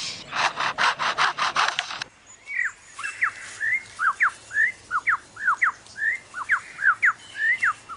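Superb lyrebird mimicking a chainsaw: rasping, sawing strokes at about four a second. These stop suddenly about two seconds in and give way to a run of clear whistled notes, each sweeping down or up, about three or four a second.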